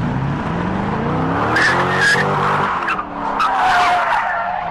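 Chevrolet Corvette's V8 revving up as the car slides out of a turn, with its tyres squealing in two long stretches as it skids sideways across the road.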